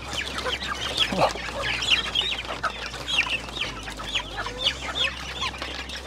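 A flock of chickens, upgraded native hens and Rhode Island Red crosses, clucking and calling together in many short, quick falling notes while they crowd to a trough to be fed.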